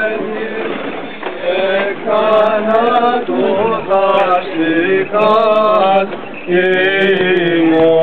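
Men chanting a Greek Orthodox (Byzantine) hymn, a winding melodic line in long phrases over a steady low held drone note.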